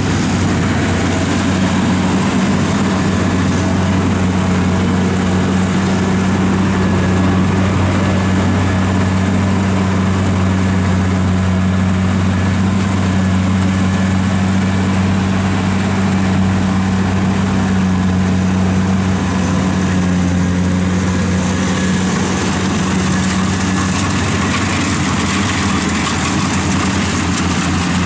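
Kubota rice combine harvester's diesel engine running at a steady speed with a constant low hum, with no revving or breaks.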